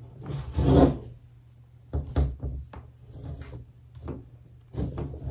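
Hard plastic snap-on shell case being pressed and worked onto a MacBook Pro's lid: plastic rubbing and scraping against the laptop, with a scatter of short knocks as the edges are pushed into place.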